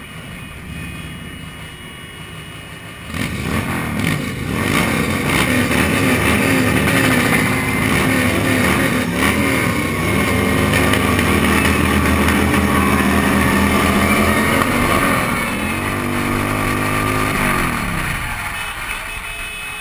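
Cruiser motorcycle engines pulling away: about three seconds in the engine sound jumps up and revs, its pitch rising and falling several times, then it slides down and eases off near the end.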